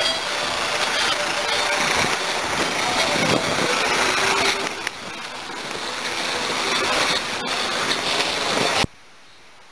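A loud, steady rush of outdoor noise with a man's voice indistinct beneath it, cutting off suddenly near the end.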